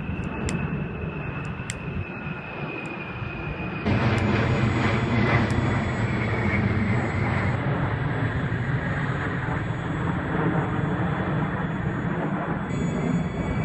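Military fixed-wing aircraft flying low overhead, a loud steady engine rumble that jumps abruptly louder about four seconds in.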